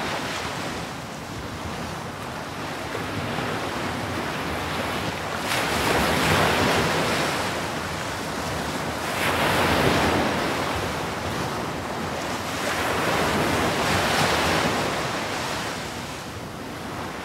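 Ocean surf: waves washing in, the rush swelling and falling back about every four seconds, three times over.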